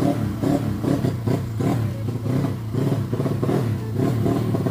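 Small drag-race motorcycle engine revved in quick repeated throttle blips, about two a second, during tuning for a hesitation off the line that the team has not yet traced.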